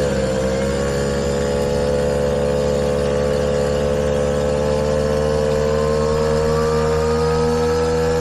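Puch moped's small two-stroke single-cylinder engine running steadily at speed while riding, its note holding level. A fainter, higher engine note rises slowly in pitch in the second half.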